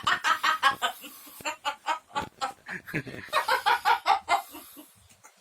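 A young child's voice making quick, repeated short vocal sounds, about five a second, in three runs with brief gaps between them.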